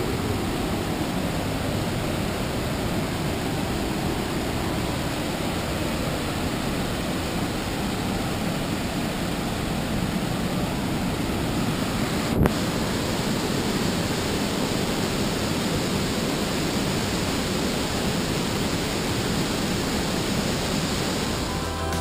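Steady rushing of a large waterfall and river, an even noise heavy in the low end, with a single short click about halfway through.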